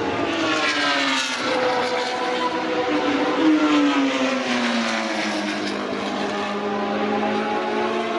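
Vintage Formula 1 racing cars from the mid-1970s to 1980s going past at speed, one after another, each engine note falling in pitch as it passes.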